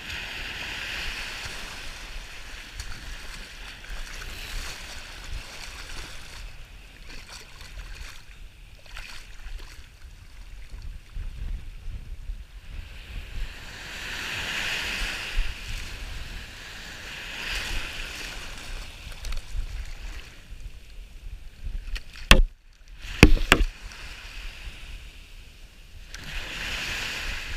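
Shallow surf washing in over sand, rising and falling in swells every few seconds, with wind rumbling on the microphone. About twenty-two seconds in come two sharp knocks, the loudest sounds.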